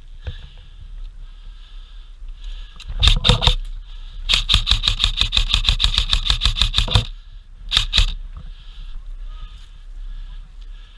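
Airsoft gun firing: a quick few shots about three seconds in, then a fast even string of shots, about seven a second, lasting nearly three seconds, and two more shots about eight seconds in.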